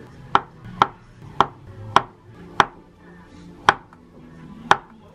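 Kitchen knife slicing through a peeled avocado half and knocking on a wooden cutting board: seven crisp knocks, about two a second at first, then more spaced out.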